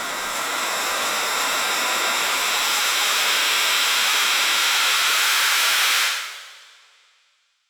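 Grain silo fan blowing: a steady, loud rush of air with faint steady whine tones in it, slowly building a little, then fading out about six seconds in.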